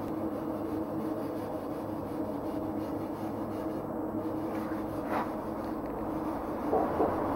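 Steady machine hum, with a brief scraping sound about five seconds in and a couple of short handling sounds near the end.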